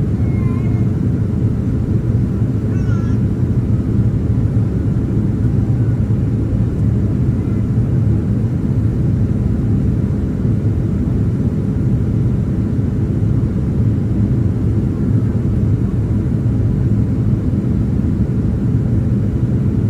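Steady in-flight cabin noise aboard a Boeing 767-300ER airliner: a constant low rumble of engines and airflow with a faint steady hum, unchanging throughout.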